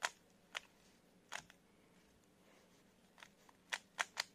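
Rubik's cube being scrambled by hand: its plastic layers turning with sharp, irregular clicks, about seven of them, several in quick succession near the end.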